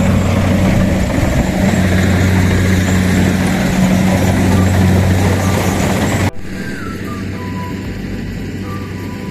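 Rice harvester engine running steadily with a loud low hum, cutting the last stand of rice. About six seconds in it cuts off abruptly to a much quieter background with a few faint high chirps.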